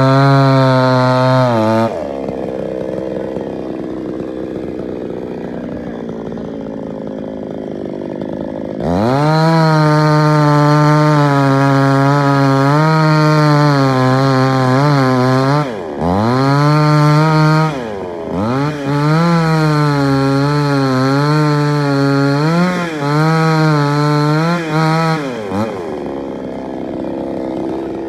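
Chainsaw cutting up a fallen coconut tree. It runs at full speed, drops to idle for several seconds, then revs up again about nine seconds in and cuts, its pitch sagging and recovering several times under load, before falling back to idle near the end.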